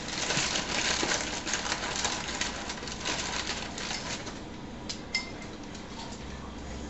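A pet bird crunching a cracker with its beak: a dense run of small crisp cracks for about four seconds, then a couple of sharper clicks.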